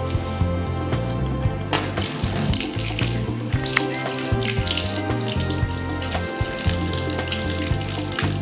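Tap water running into a stainless steel sink while chicken pieces are rinsed by hand, starting about two seconds in. Background music plays underneath.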